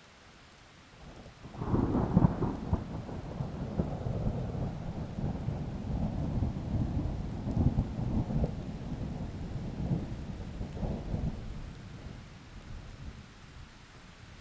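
A thunderclap breaks in about a second and a half in and rolls on as a long, crackling rumble that fades away over about ten seconds, over a steady hiss of rain.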